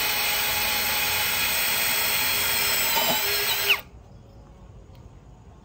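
Boshun 1065BL cordless drill driver running at high speed, driving a self-drilling screw into a steel profile. The motor's steady whine dips in pitch as the screw seats, then stops just before four seconds in.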